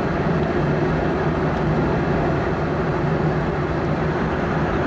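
Steady cabin noise of a Boeing 717 airliner in cruise: a constant rush of airflow with an even low hum underneath.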